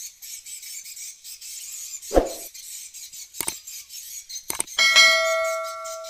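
Subscribe-button sound effect: a short whoosh about two seconds in, two clicks, then a loud notification-bell ding near the end that rings on and fades. Behind it runs the continuous high twittering of many swiftlets.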